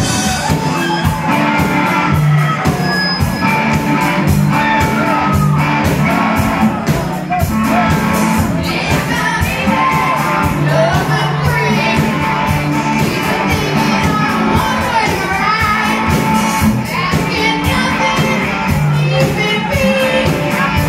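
A rock band playing loud live: electric guitars and a drum kit keeping a steady beat, with a singer's vocals on top.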